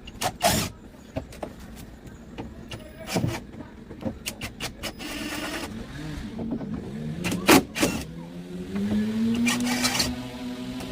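Several sharp knocks and clatters of tools and fittings being worked loose, then a cordless drill-driver's motor running in the second half, its whine rising slightly in pitch as it spins, backing out bolts.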